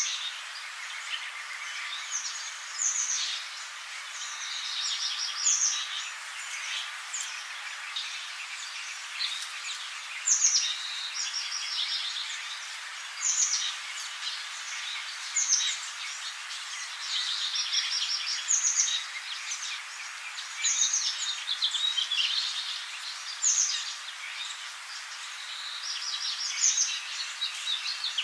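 Songbirds singing: short, high chirping and trilling phrases recur every second or two over a steady background hiss.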